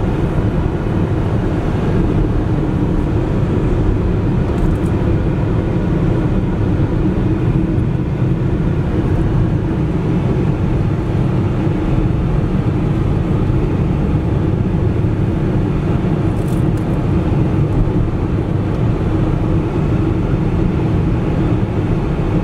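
Steady engine and tyre noise of a car driving along a paved road, heard from inside the cabin as a constant low rumble.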